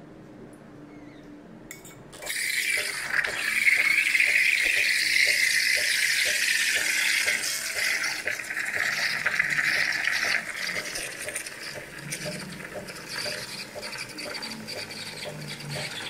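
De'Longhi Dedica espresso machine's steam wand hissing as it froths milk in a stainless steel pitcher. The steam comes on suddenly about two seconds in and is loudest for the next eight seconds or so, then settles to a quieter hiss with a faint regular ticking underneath.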